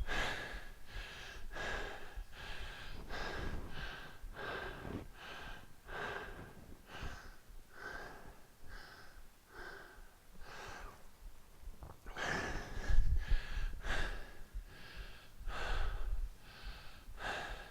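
Hard, quick breathing of a person mid-workout, with sharp breaths about two a second. A few low thuds come near the end.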